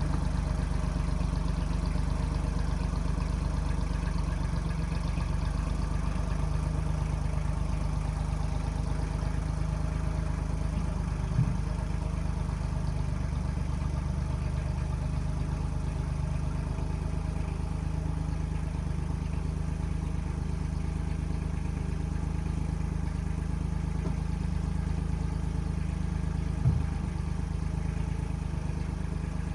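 1995 Kubota backhoe's diesel engine running steadily at a constant speed, with two brief knocks, one near the middle and one near the end.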